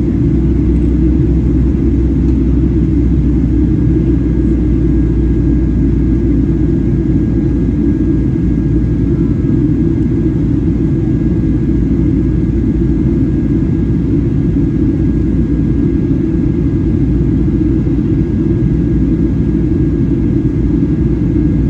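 Cabin noise aboard a Boeing 737-800 in flight: a steady, loud, low rumble of engine and airflow noise, with a faint steady high whine.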